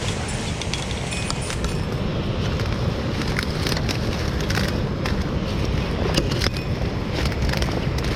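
Steady rush of a waterfall and mountain stream, with scattered snaps and crunches of footsteps through twigs and brush.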